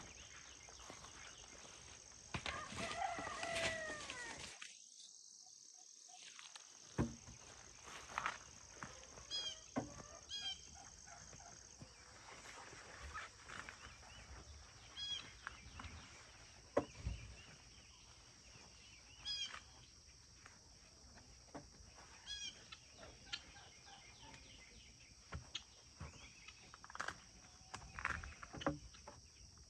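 Rooster crowing faintly once, a few seconds in, over a steady high-pitched buzz. Short chirps and scattered clicks and rustles follow.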